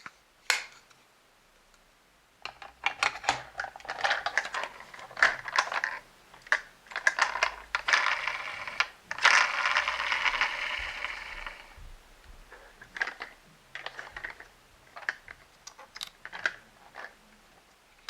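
Hard plastic toy pieces of a Play-Doh crane playset being handled: a quick click, then a long run of irregular clicks and rattles, with a few seconds of scraping in the middle.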